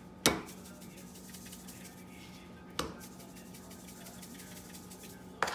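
Three sharp knocks about two and a half seconds apart, the first the loudest, with faint handling noise and a steady low hum, as lingcod fillets on a ceramic plate are turned by hand and seasoned from a pepper grinder.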